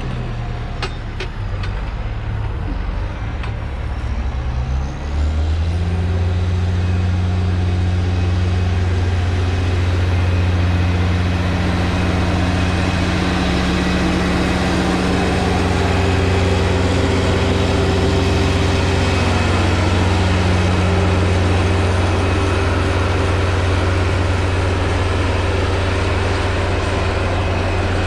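Large farm vehicle's engine running. About five seconds in it gets louder and higher in pitch, then holds a steady hum.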